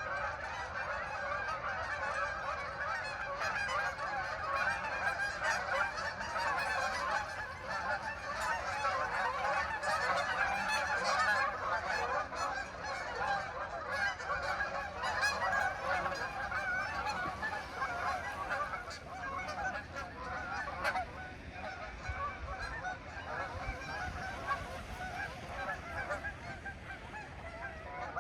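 A large flock of geese honking in a dense, overlapping chorus as they fly in. The calling is loudest in the middle and thins out near the end.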